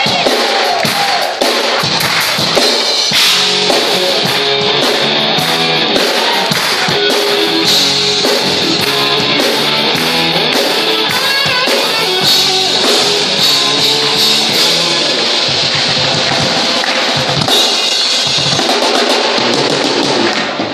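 Live band playing loud: a drum kit beating a steady rock rhythm with electric guitar over it.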